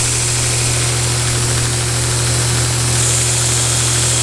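Grizzly knife buffer-grinder's belt sander running with a steady motor hum while a steel broadhead blade is ground on its worn 220-grit belt, a hiss of grinding that gets brighter about three seconds in as the blade throws sparks.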